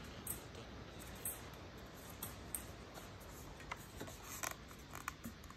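A plastic bike helmet being handled: scattered small clicks and taps, with light rubbing, over a low steady background hum.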